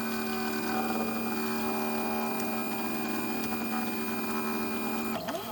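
Stepper motors of a CNC 3018 Pro whining with a steady multi-tone hum as the machine moves its pen at constant speed. Near the end the pitch starts sweeping up and down as the motors speed up and slow down.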